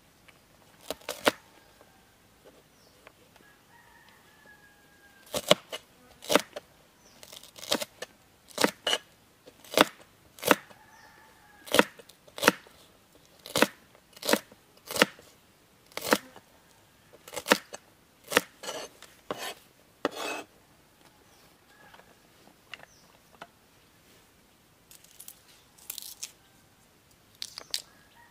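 Cleaver chopping green beans on a plastic cutting board: sharp knocks, single or in quick pairs, about one every half second to a second, thickest through the middle stretch and sparse near the start and end.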